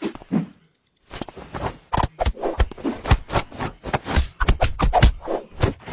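Rapid, irregular scratchy rustling and clicking, starting about a second in after a brief pause.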